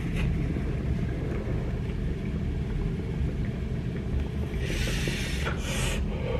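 Water bubbling in a small glass dab rig as a G Pen Connect vaporizer is hit through it: a steady low gurgle. Near the end, a breathy rush of air.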